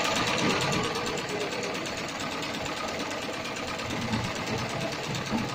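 Heavy-duty industrial pattern sewing machine running at speed, stitching through a bag handle: a fast, even chatter of needle strokes, a little louder in the first second or two.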